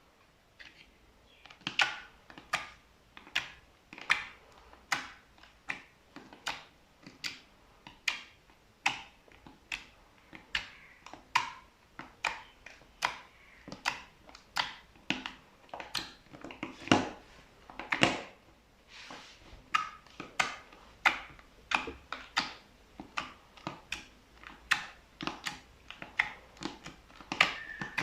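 Slime with small white beads mixed in, pressed and squeezed by hand, giving sharp pops and crackling clicks at a steady pace of a little over one a second. It starts about a second and a half in.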